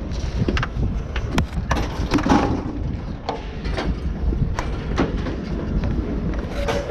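Steady low vehicle rumble with frequent sharp knocks and rattles scattered through it.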